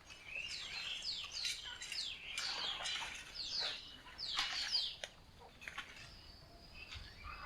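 Birds chirping: a rapid series of short, downward-sliding chirps that thins out about five seconds in, leaving only a few faint calls.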